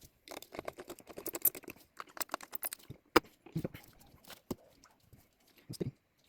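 Hands handling computer parts during a PC build: a run of small clicks and rustles, with one sharp click about three seconds in.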